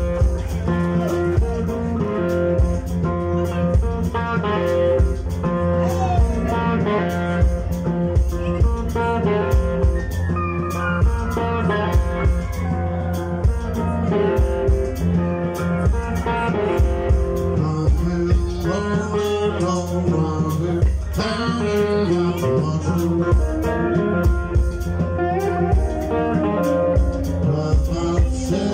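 Live blues band playing electric guitar, bass guitar and a drum kit, with the drums keeping a steady beat.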